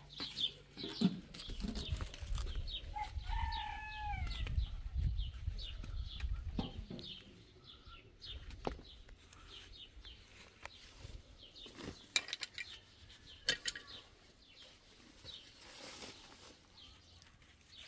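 Birds calling in a rural yard: many short high chirps repeating throughout, with a longer falling fowl-like call about three seconds in. A low rumble under the first half, and a few sharp knocks later on.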